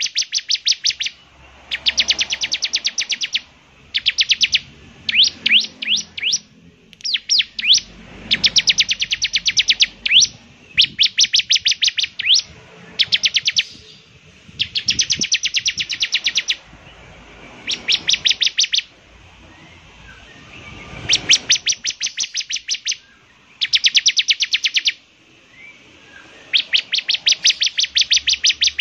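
Bar-winged prinia (ciblek semi) singing: fast trills of sharp, high repeated notes in bursts of one to two seconds, coming every couple of seconds, with a few shorter runs of slower, slurred notes.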